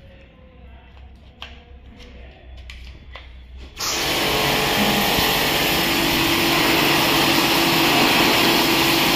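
Kärcher K2 Power VPS pressure washer standing by, with a low hum and a few faint clicks. About four seconds in, the trigger is pulled and the motor and pump start at once, then run steadily with the hiss of the high-pressure water jet. The freshly repaired pump is building pressure again.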